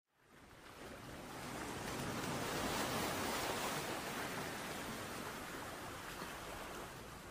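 Sea surf washing on a shore: one long swell of wave noise that fades in, builds to its loudest about three seconds in, then slowly ebbs away.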